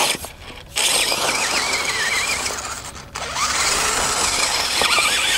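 Brushless electric drive of an RC rock buggy whining, its pitch wavering up and down with the throttle, over the hiss of tyres spinning in loose dirt. The sound drops away briefly twice.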